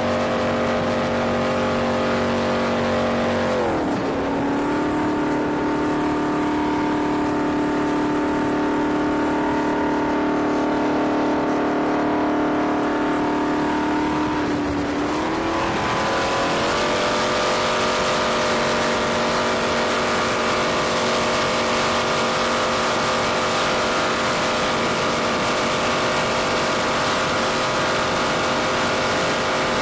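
Supercharged jet boat engine running under way with a steady note that climbs in pitch about four seconds in and again around fifteen to seventeen seconds in. After the second climb a loud hiss of rushing water and spray rides over the engine.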